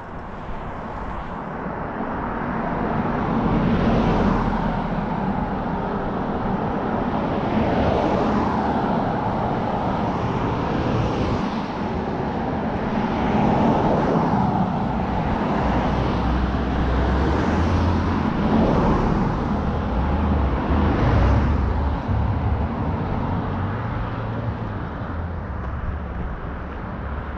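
A string of cars passing close by on a two-lane road, their tyre and engine noise swelling and fading every few seconds as each one goes by.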